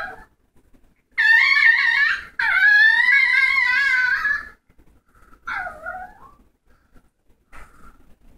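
A dog giving long, high-pitched, wavering whines: two drawn-out ones back to back about a second in, then a shorter one around six seconds and a brief yip near the end.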